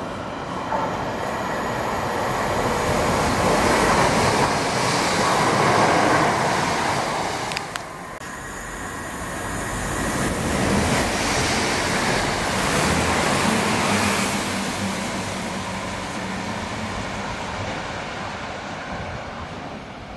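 A train passing through the station, its wheels running on the rails. It grows louder to a peak about four to six seconds in, dips briefly, swells again and then fades away.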